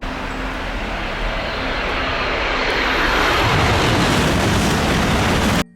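Running water rinsing mud off a toy train, a steady rushing that grows a little louder and then cuts off suddenly near the end.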